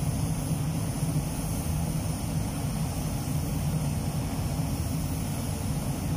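Steady drone of a spray booth's air-handling fans, a constant low hum with an even rushing hiss over it and no change in level.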